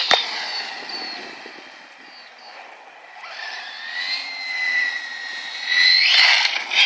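1/8-scale electric RC monster truck running on an 11.1 V LiPo pack: a high electric-motor whine over tyre noise on asphalt. The whine fades as the truck drives off, then rises a little in pitch and grows loudest near the end as it speeds back.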